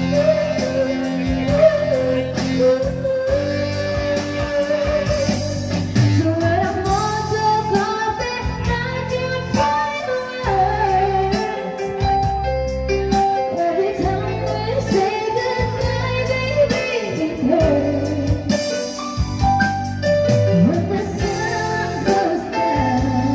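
A woman singing a slow song into a handheld microphone over instrumental backing music, holding and bending long notes.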